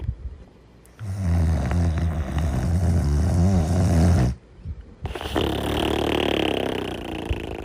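Snoring in sleep, one full breath: a loud, low, rough snore about a second in, then after a short pause a breathier, higher-pitched snore.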